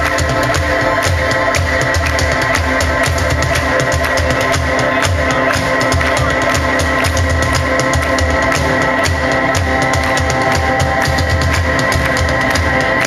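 A live band playing loudly: a drum kit keeps a steady, driving beat with kick drum and snare under held keyboard chords.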